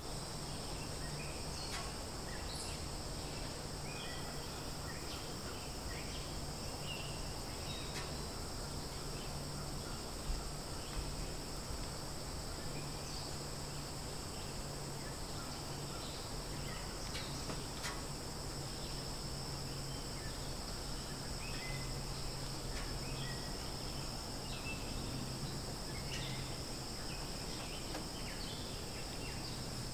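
Outdoor ambience of insects droning steadily at a high pitch, with scattered short bird chirps and a low steady hum underneath.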